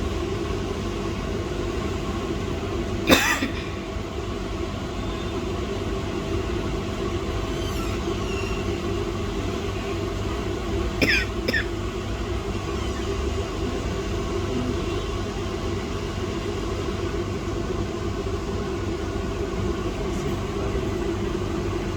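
Steady mechanical hum with a faint hiss, with a sharp click about three seconds in and two short, quick squeaks falling in pitch about halfway through.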